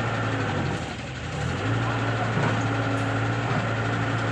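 Heavy diesel engine running steadily, dipping briefly about a second in and then picking up again.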